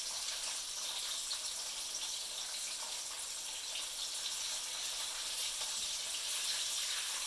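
Chicken cutlets frying in a pan of oil: a steady sizzling hiss.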